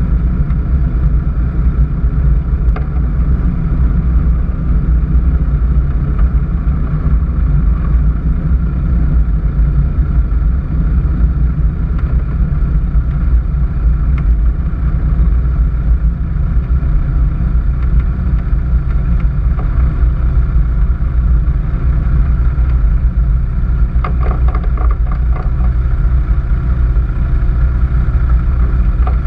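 Alpi Pioneer 200 light aircraft's engine and propeller running steadily as the plane taxis, heard from under the wing with a heavy low rumble from the prop wash on the microphone. There is a short rattle about three-quarters of the way through.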